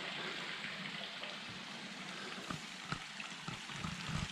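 A small stream running steadily, its water rushing over a streambed, with a few light ticks and splashes in the second half.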